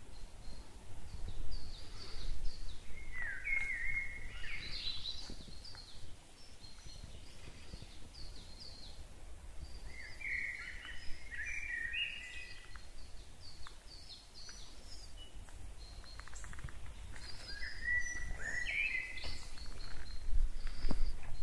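Woodland birds singing: many short high chirps throughout, with a louder song phrase of about two seconds three times, roughly every seven seconds. A low rumble runs underneath and grows louder near the end.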